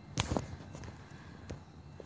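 A few soft footsteps scuffing on a dirt trail: two close together just after the start and one more about a second and a half in, over a faint low background rumble.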